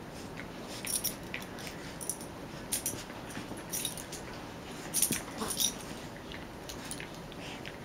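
Two Cairn terriers play-wrestling on a rug: scuffling and rustling with scattered light clicks and jingles, a few sharper bursts about a second, three and five seconds in.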